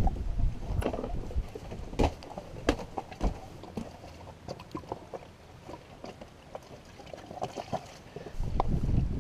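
Scattered small knocks and clicks from a handheld camera being moved against a sailboat's stainless rails and deck, over faint water sounds at the hull. Wind buffets the microphone from about eight seconds in.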